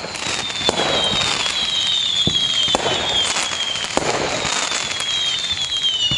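Fireworks sound effect: a dense barrage of bangs and crackling with several whistles falling in pitch, fading in at the start.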